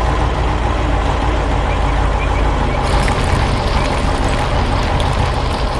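Heavy construction-vehicle engine running with a steady low rumble. A harsher, hissing layer joins about three seconds in.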